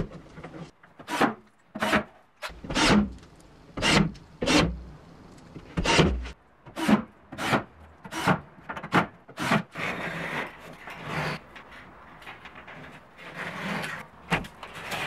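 Cordless drill-driver driving screws into gypsum board over metal studs, in about a dozen short bursts. Near the end the bursts give way to a rougher scraping and rubbing.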